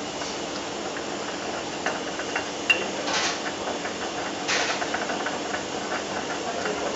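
Utensil clicking, knocking and scraping against a bowl as a garlic, chili and bean-paste dipping sauce is mashed and stirred, over a steady background hiss.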